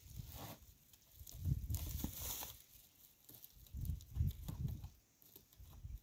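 Gusts of wind buffeting the microphone in irregular low rumbles, with a brief rustle of dry hay being handled about two seconds in.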